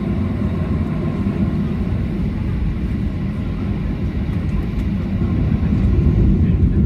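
Ryanair Boeing 737-800 jet engines running: a steady low rumble that grows louder about five and a half seconds in.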